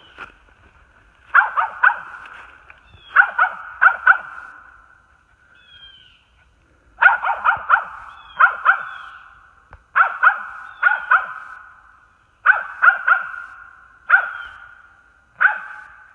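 A dog barking in quick runs of two to four barks every second or two, each run trailing off in echo, with a few short high whines between runs.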